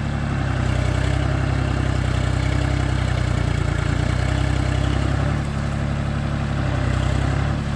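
Diesel engine running steadily at a low, even speed, with a slight dip in level a little past halfway.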